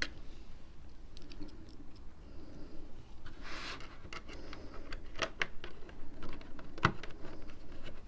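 Small sharp clicks and taps of handling tiny screws and metal parts during a hard drive fitting, with a brief rustle about three and a half seconds in and a cluster of clicks between about five and seven seconds.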